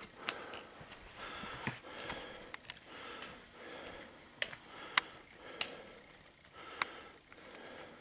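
A hiker breathing hard in a steady rhythm of about one breath a second while climbing a trail, with sharp clicks of footsteps and taps on the rocky path.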